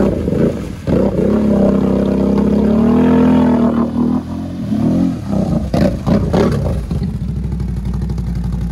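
Lifted mud ATV's engine revving hard under load as it churns through deep mud, its pitch climbing and holding for a few seconds, falling off about four seconds in, then running at a lower, steady speed.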